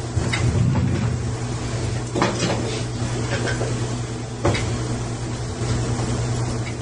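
A steady low hum with a few scattered knocks and clatters: handling noise picked up by the microphones at the council table.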